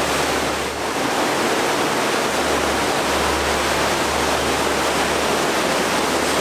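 Loud, steady rush of fast-falling river water in a rocky gorge, swollen after heavy rain.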